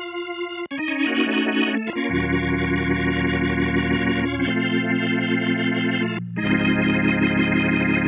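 Sampled vintage organ from Native Instruments' Vintage Organs library playing held chords over low bass notes, with a slight wavering tremolo. The chords change every second or two, with a brief break about six seconds in.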